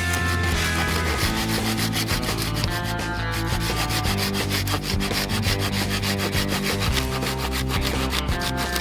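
Background music: sustained chords over a bass line, with a fast, even scratching rhythm on top.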